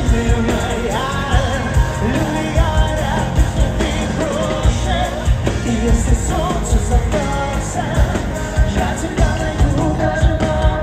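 Live pop-rock band playing with singing, over a steady drum beat.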